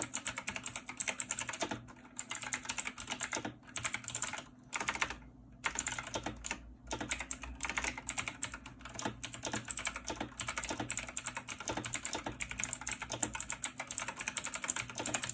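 Fast typing on a clicky mechanical gaming keyboard: a dense run of sharp key clicks, broken by a few brief pauses partway through.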